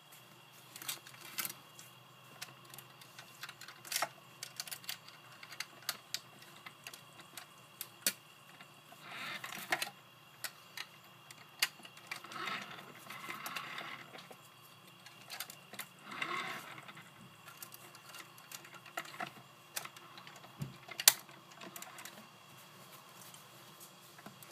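Removable body panels of a 1/18 scale Smart Fortwo model being fitted back on by hand: scattered light clicks and snaps as the panel clips seat, with a few short stretches of rubbing and scraping. One sharper snap late on is the loudest.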